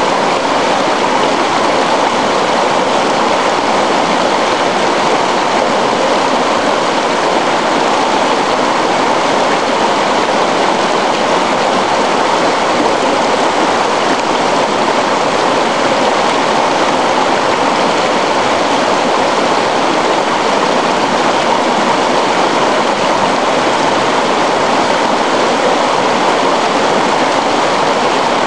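Shallow river flowing fast over stones, a loud, steady rush of water.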